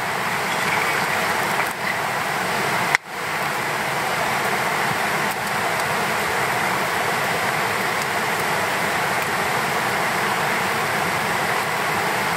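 A steady rushing noise, even and unbroken with no distinct events, cut off for an instant about three seconds in.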